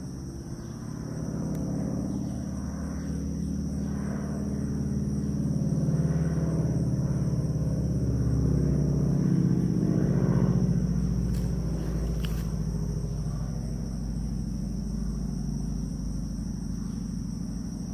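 Piston engine of a vintage warbird propeller plane flying overhead, a steady drone that swells to its loudest around the middle and eases off a little towards the end.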